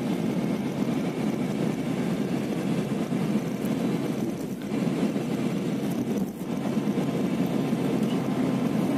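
Steady road and engine noise inside a moving intercity coach, with two brief dips in level about halfway through.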